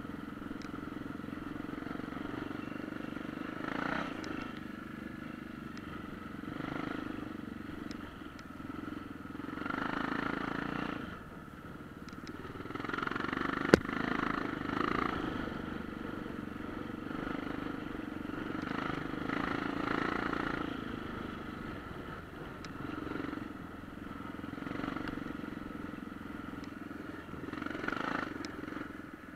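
Off-road motorcycle engine running on the move, its note swelling and easing every few seconds as the throttle opens and closes. A single sharp click about fourteen seconds in.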